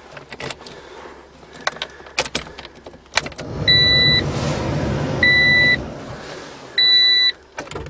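Keys and small clicks as the ignition is worked, then an old Honda's engine cranking for about four seconds without catching. Three loud electronic beeps sound over the cranking, about a second and a half apart. The attempt fails on what the owner calls a bad battery connection.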